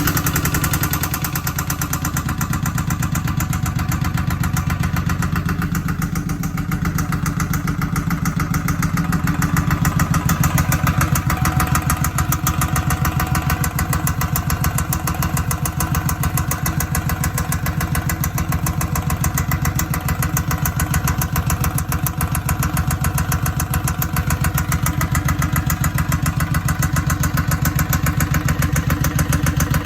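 Suzuki Boulevard M109R's V-twin engine idling with a very loud, regular knocking, a fault whose cause the owner has not yet found.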